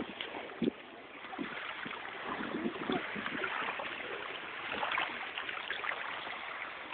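Steady rushing of wind and lake water at the shore, with soft knocks and rubbing from the phone being swung about in the hand.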